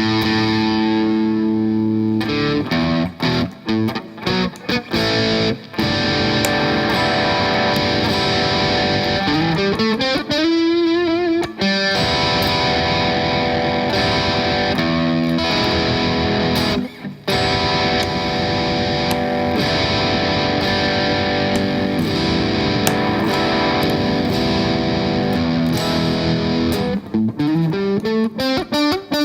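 Electric guitar played through an overdrive pedal: sustained chords and single notes. About a third of the way in, and again near the end, a note glides up in pitch. A few short stops break the playing.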